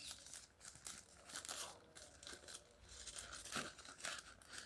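Paper burger wrapper crinkling and rustling as it is pulled open by hand: a string of quick, irregular, faint rustles.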